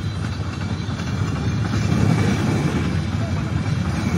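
Motorbike riding along: a steady low rumble with no let-up.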